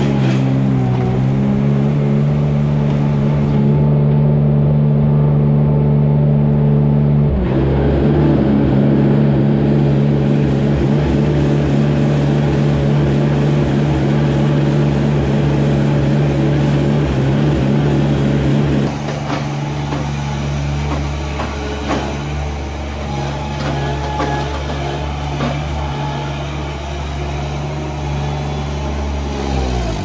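Small engine of a sawdust bedding spreader running at a steady pitch as it moves along the cow stalls. About two-thirds of the way through the sound drops in level and turns more rattly.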